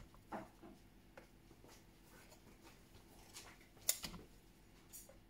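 Plastic wire egg slicer knocked and tapped against a plastic bowl to shake out slices of boiled egg: a few sharp clicks with softer taps between, the loudest knock about four seconds in.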